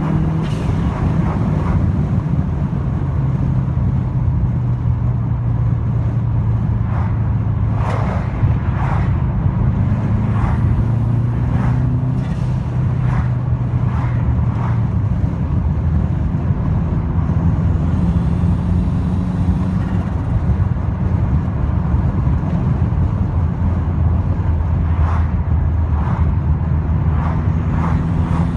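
Subaru Impreza WRX's turbocharged flat-four engine running, its pitch shifting up and down. Clusters of short chirps come several times over it: turbo flutter, the compressor surging as the throttle is lifted.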